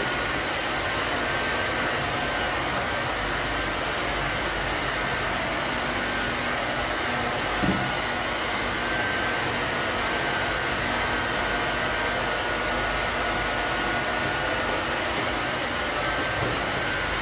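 Steady whooshing of an air blower or fan, even throughout, with a faint steady whine; one soft knock about eight seconds in.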